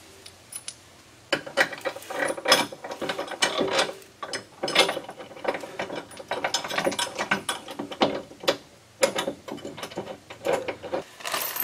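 Rapid, irregular metallic clicking and knocking as a bolt is worked through a truck running board's steel mounting bracket and the nerf bar's end is fitted against it. It starts about a second in.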